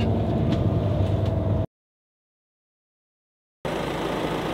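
Steady low drone of a bus cabin with engine hum, cut off abruptly about a second and a half in. Two seconds of dead silence follow, then a steady background hiss.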